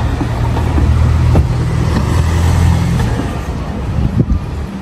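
Lamborghini Aventador SV's V12 with a Capristo exhaust running just after start-up: a deep, steady idle drone that eases off after about three seconds. A couple of sharp cracks come about four seconds in.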